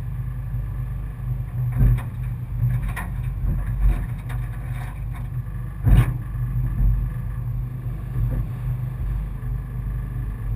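Four-cylinder enduro race car engine idling steadily, heard from inside the car, with a few sharp knocks, the loudest about six seconds in.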